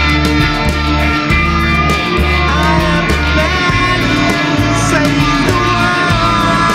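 Rock band playing an instrumental passage: an electric guitar lead with bending notes over a steady bass line and drums.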